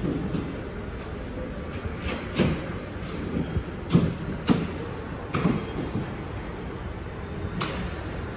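Fingertips tapping the glass touchscreen of a mall directory kiosk: a handful of sharp, uneven taps over a steady background rumble.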